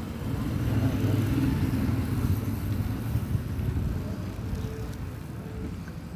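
Small motorcycle engine running at a steady cruising speed while riding, a low even drone mixed with wind rushing over the microphone, easing off slightly toward the end.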